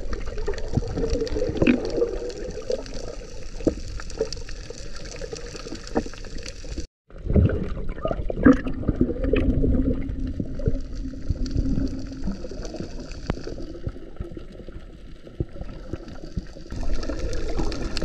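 Muffled gurgling and sloshing water around a camera held underwater. The sound cuts out for a moment about seven seconds in.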